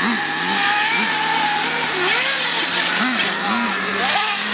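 Nitro RC car engine running, with short throttle blips that briefly lift its pitch several times over a steady drone.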